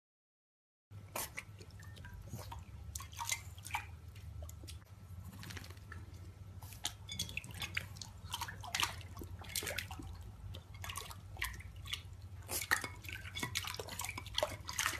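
A French bulldog puppy lapping and splashing in a bowl of water, with its face pushed into the bowl: irregular wet splashes and drips that start about a second in.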